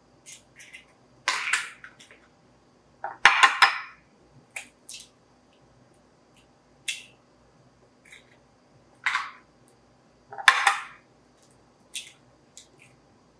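Eggs being cracked and broken open over a glass baking dish: sharp taps and crunches of eggshell, with fainter clicks between. Four of the cracks are louder than the rest.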